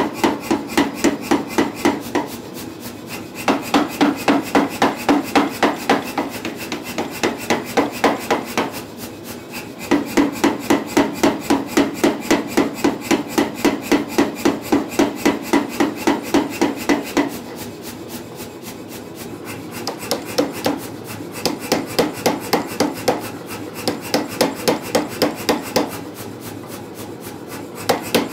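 Power hammer pounding a hot 4140 steel bar, drawing out a taper. The blows come rapid and even, about four to five a second, in runs of a few seconds, with short pauses between runs where a lower steady running sound carries on.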